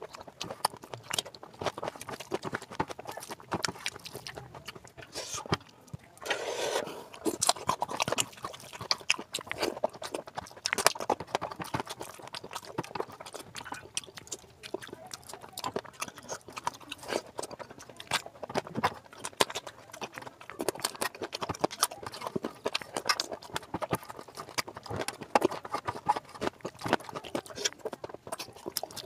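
Close-miked eating of curry and rice by hand: wet chewing and lip-smacking with sticky squelches, a rapid, irregular run of short clicks.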